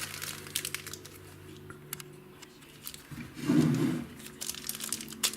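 Small clicks and taps of a part being handled and fitted onto the pickup winder's shaft. There is a louder low, dull sound lasting under a second about three and a half seconds in.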